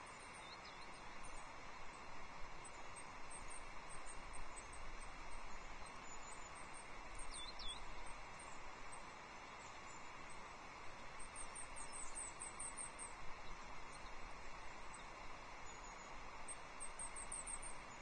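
Thin, high-pitched calls of small songbirds at intervals, some as short rapid trills, over a steady outdoor hiss.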